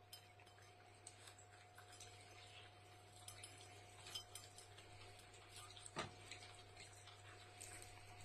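Near silence: faint room tone with a steady low hum and scattered small clicks, one a little stronger about six seconds in.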